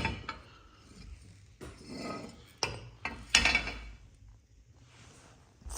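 Removed anti-roll bar being handled, clinking and knocking a few times against something hard, with light handling noise between the knocks.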